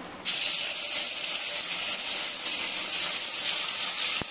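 Marinated chicken pieces dropped into hot oil in a kadai and deep-frying: a loud steady sizzle that starts suddenly about a quarter second in as the first pieces hit the oil.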